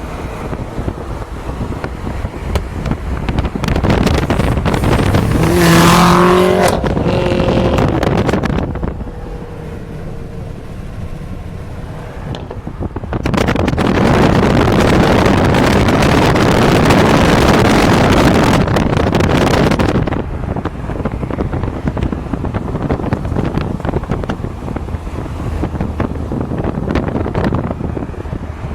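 BMW M6's twin-turbo V8 with catless downpipes and a fresh tune, making loud exhaust passes. There is a loud stretch a few seconds in with a falling pitch near six seconds, and a longer loud, steady burst from about 13 to 20 seconds.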